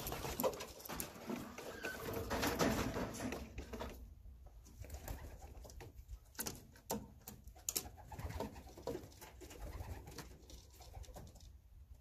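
Racing pigeons cooing, fullest in the first four seconds, then quieter, with scattered light clicks.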